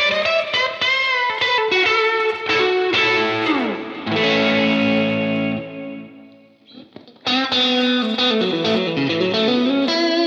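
Electric guitar played through a UAFX Enigmatic overdrive pedal. Single-note lines with vibrato and a slide down lead into a held chord that dies away about six seconds in; a fresh chord then comes in, followed by more notes.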